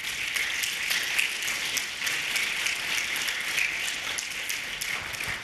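Audience applauding, a dense, even clatter of many hands clapping at the end of a talk, easing off near the end.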